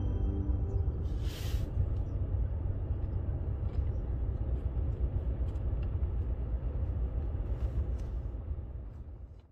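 Steady low road rumble heard inside a moving car, with a brief hiss about a second and a half in, fading out near the end.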